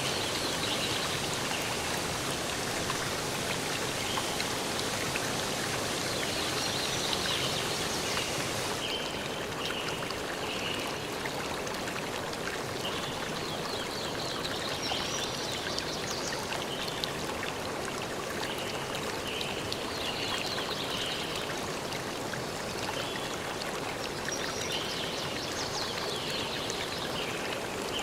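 Steady rush of a flowing stream, with short high chirps recurring over it. About nine seconds in, the hiss abruptly loses its highest part and sounds a little duller.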